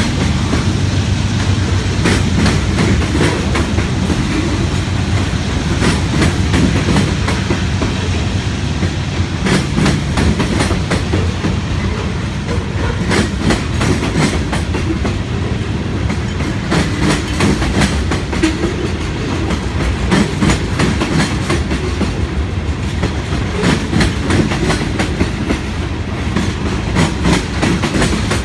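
BNSF manifest freight train's cars rolling past close by: a steady, loud rumble of steel wheels on rail, with a continual irregular clickety-clack as wheel sets cross rail joints.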